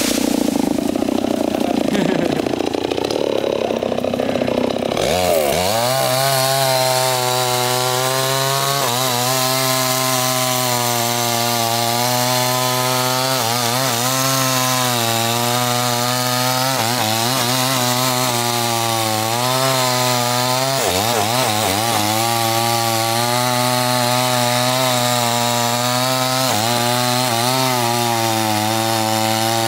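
Stihl two-stroke chainsaw running. For the first five seconds or so the sound is rough and wavering. After that it holds a steady engine note that dips and comes back up in pitch every few seconds as the throttle changes.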